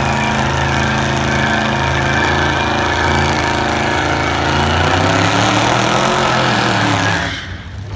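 Car engines running at a drag strip, holding a steady note and then rising in pitch as they rev up from about five seconds in. The sound drops off abruptly near the end.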